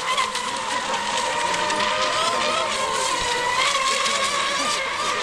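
Several electric RC racing boats running at speed: a steady high whine from their motors, wavering a little in pitch, over a hiss of water spray.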